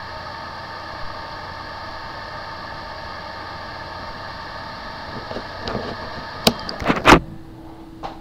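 Recording of a hard drive with a bad motor IC, powered on: a steady mechanical hum made of several whining tones. About six and a half seconds in come a few sharp knocks and clicks, after which only a single steady low hum remains.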